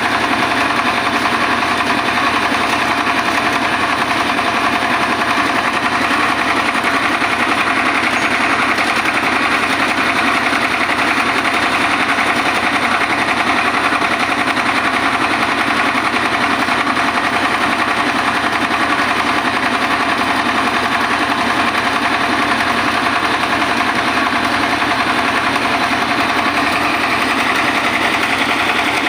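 Diesel-powered mobile rice huller running steadily, with a loud, continuous mechanical clatter.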